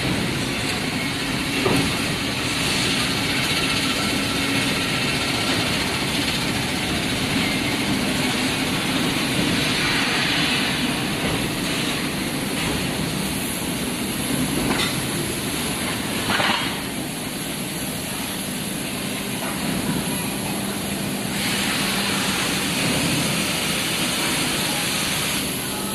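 Foundry workshop machinery running: a steady, loud mechanical din with hiss and a low hum, and a few sharp knocks. The hiss drops away for several seconds past the middle, then returns.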